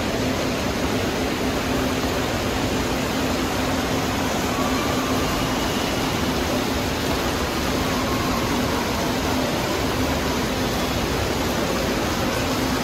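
Steady rushing noise of an indoor water park hall, running water and air handling together, with a low steady hum underneath.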